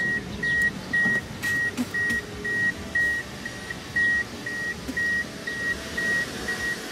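Electronic warning beeps inside a car: a short high beep of one steady pitch repeating evenly about twice a second.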